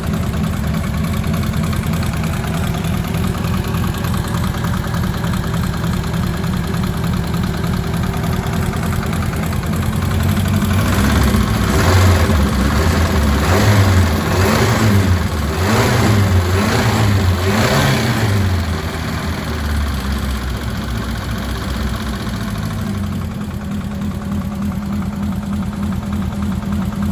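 Ford Cortina's turbocharged Pinto four-cylinder engine running at idle through a new stainless exhaust, blipped up and back down about five times in quick succession partway through, then settling back to a steady idle.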